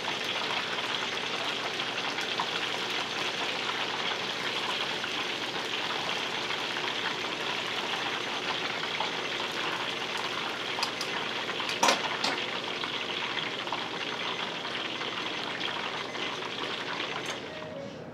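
Menbosha (shrimp toast) deep-frying in hot oil: a steady sizzle, with a couple of short clicks about two-thirds of the way through. The sizzle drops away near the end.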